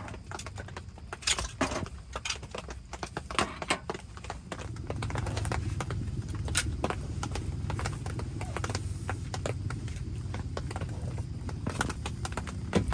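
Irregular clicks and light knocks, with a steady low rumble that sets in about four seconds in.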